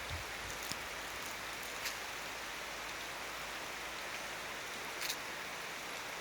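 Heavy rain falling in large drops, a steady hiss with a few sharper drop ticks, the loudest about five seconds in.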